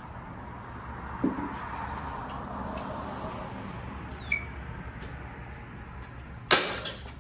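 A few short knocks over a steady low hum, then a louder clatter about six and a half seconds in: handling noise as work on the motorcycle starts.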